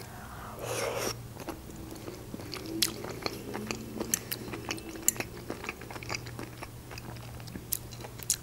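Close-miked chewing of a forkful of baked champignon mushrooms, with wet mouth clicks and smacks scattered throughout and an occasional sharper tick from the fork against the glass baking dish.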